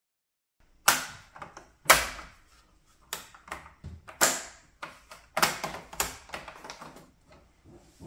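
Sharp clicks and clacks of hard plastic parts and a screwdriver being handled on a computer's back panel: about a dozen irregular knocks, the two loudest about one and two seconds in.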